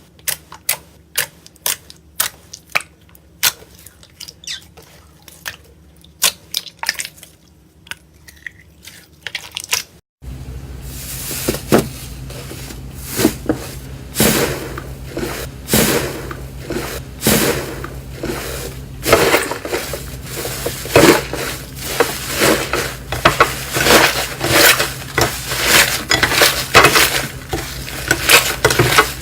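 Crisp cutting clicks, about two a second, as a blade slices through dry soap. About ten seconds in, the clip changes to a denser run of crackling, crunching and squishing over a steady low hum.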